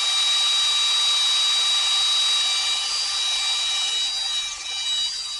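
Power drill running at speed with a steady high whine, drilling out an aluminum rivet. It eases off about four and a half seconds in.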